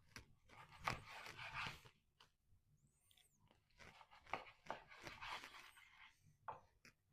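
Knife sawing through smoked brisket, the crusted bark crunching under the blade in two spells of slicing strokes.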